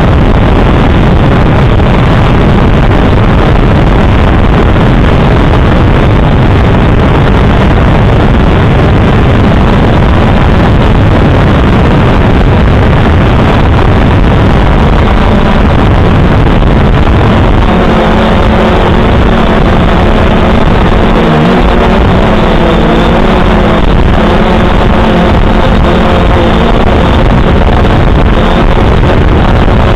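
Drone's electric motors and propellers running in flight, heard loud and close through the drone's onboard camera microphone as a steady noise. About two-thirds of the way in, a humming tone with several pitches stands out and wavers slightly.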